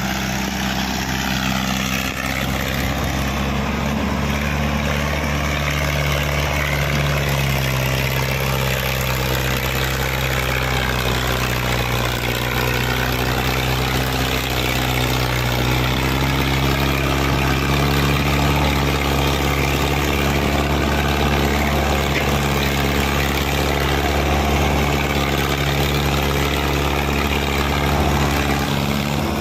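Mahindra Arjun 605 tractor's four-cylinder diesel engine running steadily under heavy load as it pulls a fully loaded trolley up a steep climb.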